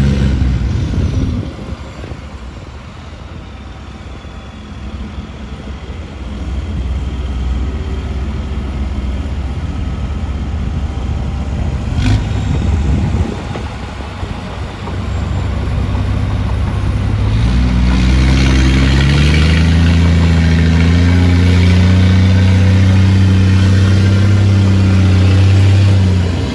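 Diesel engine of heavy earthmoving machinery running: it eases off about a second in to a lower, rough rumble, with one sharp click near the middle, then revs up about two-thirds of the way through and holds a steady, loud working pitch.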